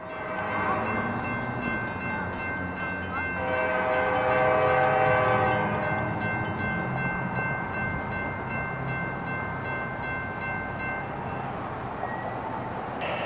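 Diesel locomotive air horn sounding a long held chord over a low engine rumble. The horn swells louder between about four and six seconds in and dies away about eleven seconds in.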